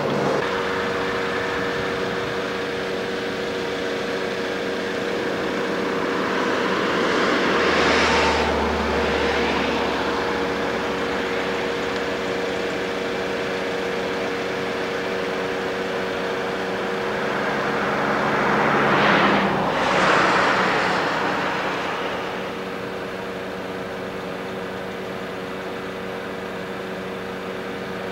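Road traffic passing by: two vehicles go past, each a rising and falling whoosh, the first about a third of the way in and the second about two-thirds in. A steady hum runs underneath.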